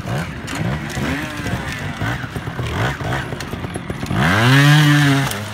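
Trials motorcycle engine worked in short throttle blips, its pitch rising and falling about every half second. About four seconds in it gives a longer, louder rev, held for about a second.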